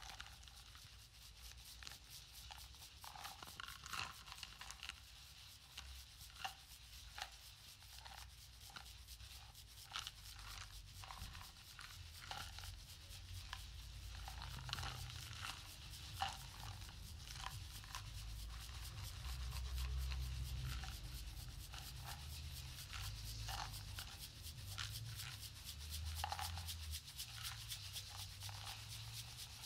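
Percussion ensemble playing quiet rubbing, rasping and shaking sounds on hand-held objects: a soft, hissy texture dotted with many small clicks and taps. A low rumble rises underneath partway through and is strongest about twenty seconds in.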